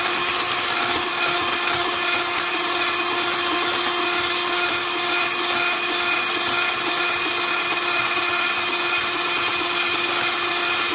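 Electric hand mixer running steadily at one speed, its beaters whisking pumpkin cake batter in a stainless steel bowl, with a constant motor whine.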